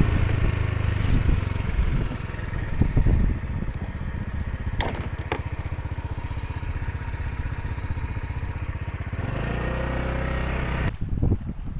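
A small engine running at a steady speed, with a fast, even pulse. There are two brief knocks about five seconds in.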